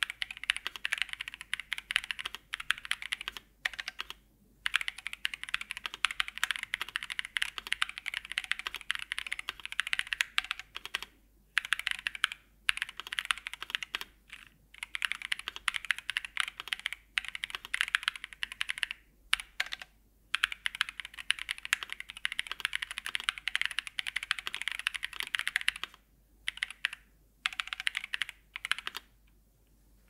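Fast typing on a MonsGeek M1 mechanical keyboard with stock Moyu Hades switches, a polycarbonate plate, foam damping and dye-sub PBT keycaps: a dense run of keystroke clacks broken by brief pauses every few seconds.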